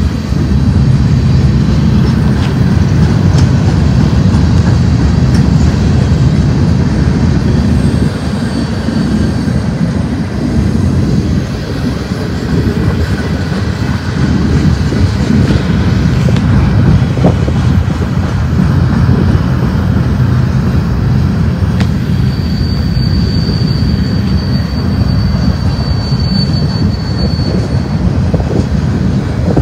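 Freight cars of a BNSF manifest train rolling past close by: a loud, steady rumble of steel wheels on the rail. A thin, high squeal from the wheels comes in about 23 seconds in and lasts about five seconds.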